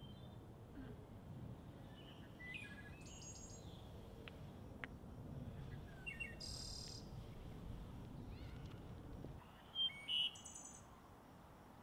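Outdoor ambience of small birds chirping now and then over a low steady rumble, with two louder calls about ten seconds in. The rumble drops a little just before them.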